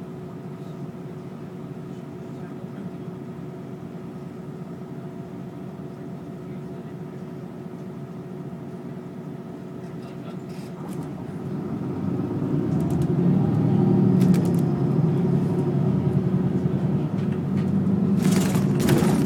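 Bus engine idling at a stop, heard from inside the passenger cabin, then rising as the bus pulls away and accelerates about eleven seconds in. A short hiss near the end.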